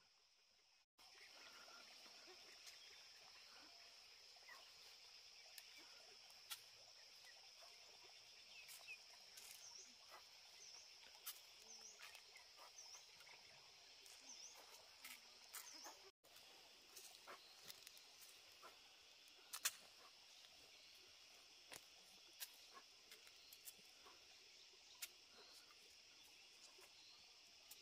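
Faint, steady high chirring of insects, with a run of short bird chirps in the middle and scattered light clicks and taps.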